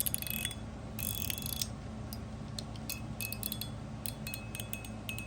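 Titanium mechanical fidget slider being slid back and forth, its ball-and-spring detents clicking along the tracks with high, ringing metallic pings. The clicks come in two quick clusters in the first second and a half, then as scattered single clicks.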